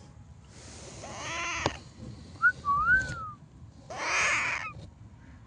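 Pet parrot calling: a harsh, raspy squawk, then two short gliding whistles, then another harsh squawk near the end. A sharp click comes right after the first squawk.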